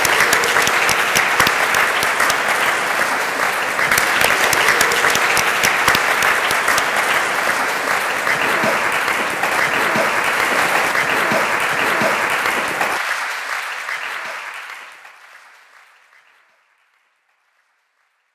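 Audience applauding steadily, dying away about thirteen seconds in.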